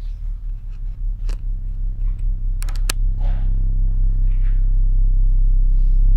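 A low, pulsing synthesized drone from the film's score, steadily swelling louder. A few sharp clicks cut through it, one about a second in and a quick pair near the middle.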